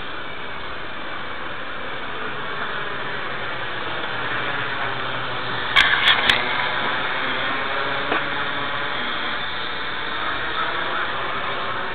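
Quadcopter drone's electric motors and propellers buzzing overhead in flight, heard as a steady hiss with faint wavering whine, broken by three sharp clicks in quick succession about six seconds in.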